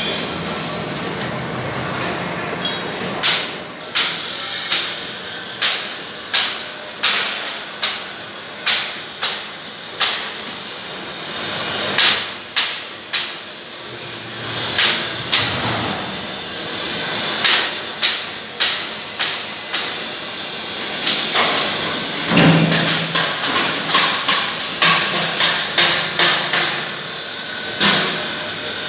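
Hammer blows: a run of sharp strikes about one and a half a second, then after a short pause more irregular strikes, over a steady hiss.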